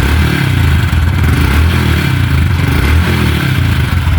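Honda Biz single-cylinder four-stroke engine running with a metallic rattle from inside, like a loose can shaking. The rattle is the cam timing chain slapping because its tensioner no longer keeps it tight.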